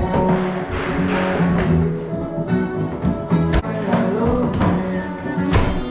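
Background music with guitar and a beat.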